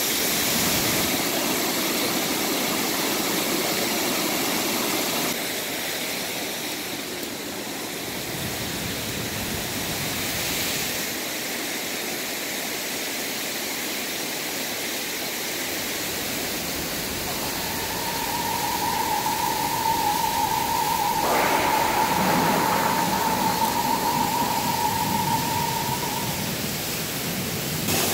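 Steady rushing of water. The sound shifts abruptly about five seconds in. In the second half a steady high tone sounds over it for about eight seconds.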